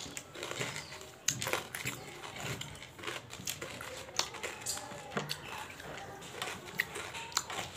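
Tabasheer (bamboo silica) crystals crunching and clicking in quick, irregular snaps, as they are chewed and as fingers pick through the pile on a wooden table.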